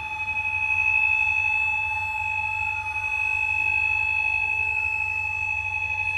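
A tower block's central fire alarm sounds a steady, continuous two-note tone, heard through the flat's closed doors. Behind it, an approaching fire engine's siren wails faintly, rising and falling slowly from about three seconds in.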